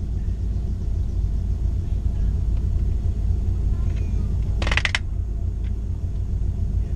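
Nissan Skyline R34 GT-T's turbocharged straight-six idling steadily, a low rumble heard from inside the cabin. A brief rattle of clicks comes a little under five seconds in.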